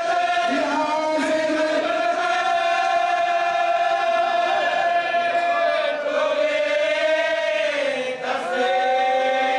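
Men's voices chanting a marsiya, an Urdu elegy, in long drawn-out notes: a lead reciter at a microphone with other men singing along. About eight seconds in the line falls in pitch and breaks, then a new held note begins.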